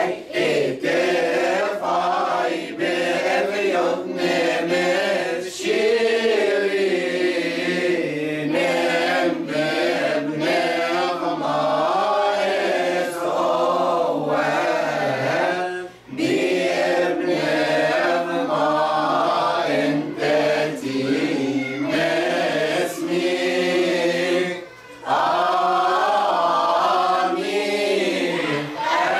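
Mixed choir of men and women chanting a church hymn together, unaccompanied, with a short break for breath about halfway through and another near the end.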